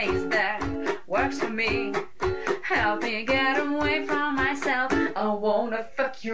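Recorded retro-jazz song: a ukulele plucked in a steady rhythm under a woman singing.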